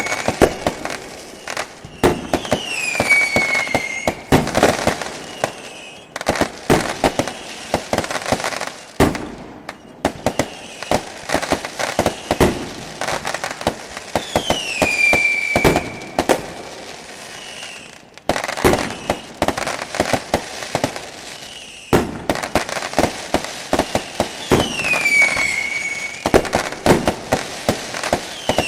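Fireworks sound effect: a dense run of pops and crackling bangs, with a whistle that falls in pitch three times. The sequence breaks off and starts again abruptly a few times, like a looped effect.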